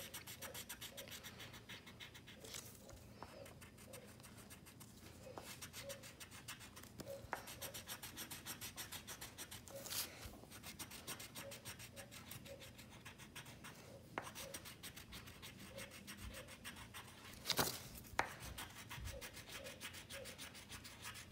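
Yellow coloured pencil rubbing on paper in rapid back-and-forth strokes as a drawing is coloured in, with a few louder knocks.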